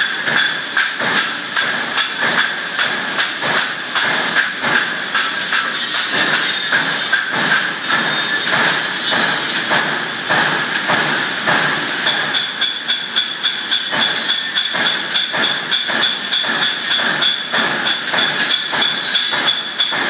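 Repeated metallic tapping, about three strikes a second, over a steady hiss, from a machine tool working the slotted edge of a large steel disc.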